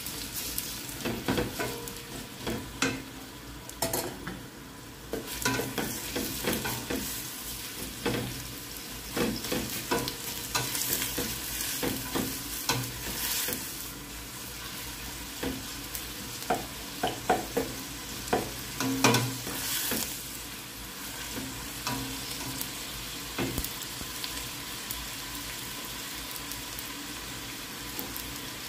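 Sliced red onions frying in hot oil in a stainless steel pot, sizzling steadily, with a plastic slotted spatula scraping and knocking against the pot as they are stirred. The stirring stops near the end, leaving only the sizzle.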